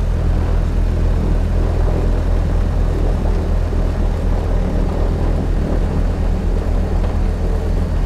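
Britten-Norman Islander's twin engines and propellers running, heard from inside the cockpit as a steady, low drone.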